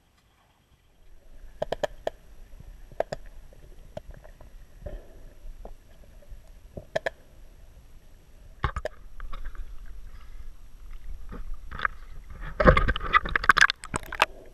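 Muffled underwater sound picked up by a camera submerged among fish: a low rumble with scattered sharp clicks and knocks, and a busy cluster of louder knocks and crackles near the end.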